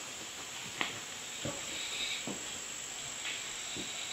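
Crickets chirring steadily, a constant high-pitched trill, with a few light clicks spaced through it.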